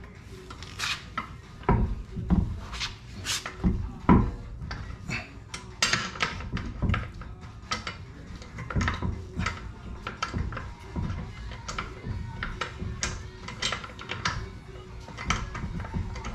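Irregular metallic clinks and clicks of lug bolts and hardware being handled and threaded in by hand while a BMW wheel is mounted on the hub.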